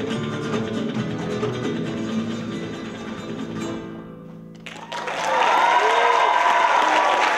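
Flamenco-style Latin guitar music plays and dies away about four and a half seconds in. Then an audience breaks into loud applause with whooping cheers.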